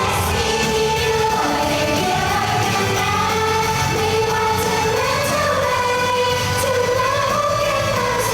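Live pop song: female voices singing a melody with long held notes over a steady backing band track.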